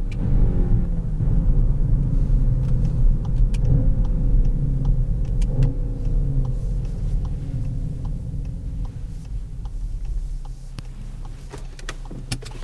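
Skoda Octavia RS Combi's 2.0-litre four-cylinder running on the road, heard as a steady low engine and road rumble. The engine note slowly falls in pitch, and the sound fades toward the end.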